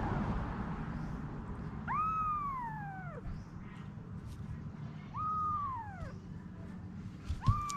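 A cat meowing three times, each call about a second long and rising then falling in pitch. A short knock comes near the end.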